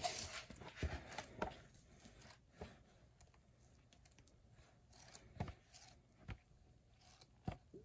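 Pages of a hardcover book being flipped through: faint paper rustling with a few short, sharp ticks and taps scattered through.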